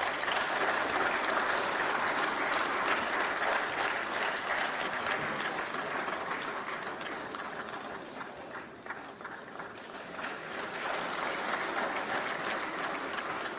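Audience applauding steadily. The clapping thins out about eight seconds in and picks up again a couple of seconds later.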